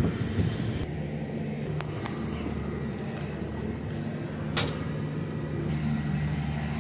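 Steady low mechanical hum, with a few sharp knocks, the loudest about four and a half seconds in.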